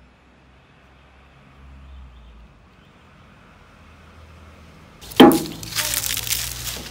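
Faint low background, then about five seconds in a sudden sharp knock followed by crackling and rustling. This is a person carrying a square metal tin and a wooden stick across ground littered with dry palm fronds.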